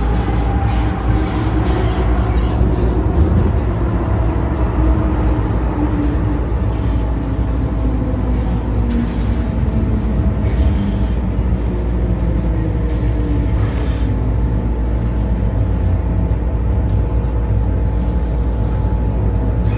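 MTR Tsuen Wan Line M-train heard from inside the car as it brakes into a station: a steady low rumble of wheels on rail, with the traction motor whine falling slowly in pitch as the train slows, and a steady tone coming in about halfway.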